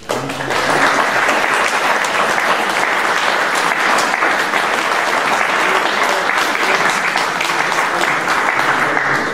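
An audience applauding, a loud, steady round of clapping that starts all at once and fades away at the end.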